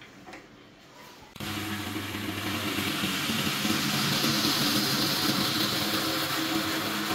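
BURT wood lathe switching on about a second in and running steadily with a motor hum, while a drill bit in the tailstock chuck bores into the end of the spinning coconut-wood blank with a steady hiss of cutting.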